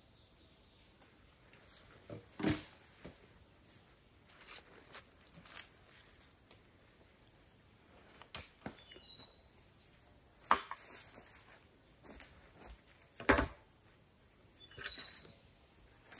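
Scattered knocks and rustles from handling material, the sharpest about 13 seconds in, with a short run of high chirping notes twice, about 9 and 15 seconds in.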